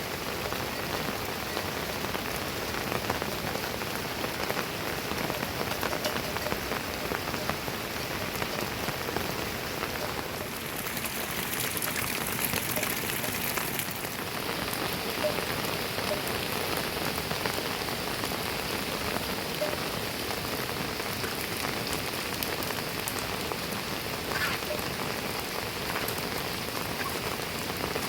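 Heavy rain falling steadily, a dense patter of drops on surfaces. For a few seconds near the middle the patter turns hissier and higher.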